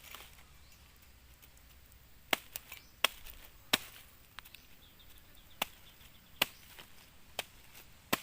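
A series of sharp clicks and snaps at irregular intervals, about eight in all, starting about two seconds in, over a quiet outdoor background.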